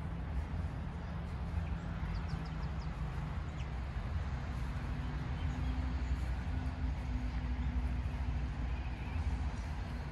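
Outdoor park ambience dominated by a steady low engine hum, with a few faint bird chirps about two seconds in.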